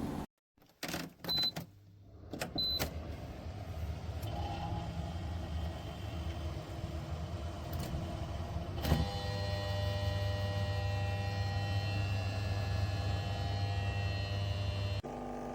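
Dehumidifier: two short high beeps from its control panel, then the unit running with a steady hum. About nine seconds in there is a click, after which the hum carries a steadier low tone.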